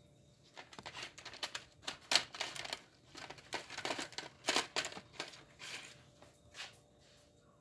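Plastic crinkling and rustling in irregular bursts as it is handled by hand.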